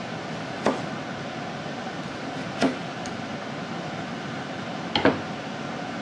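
Kitchen knife knocking on a wooden cutting board while halving cherry tomatoes: single sharp knocks about a second in and near the middle, then a close pair near the end, over a steady hiss.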